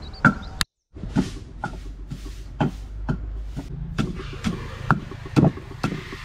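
Pestle pounding spice paste in a mortar: a steady run of dull thuds, about two or three a second, broken by a brief dropout near the start.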